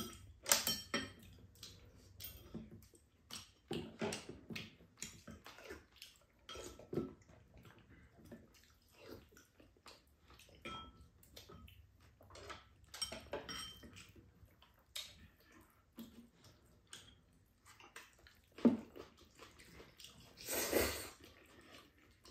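Two people eating udon noodles: scattered clicks of chopsticks against ceramic bowls and a pan, with wet slurping and chewing of noodles, and a longer slurp near the end.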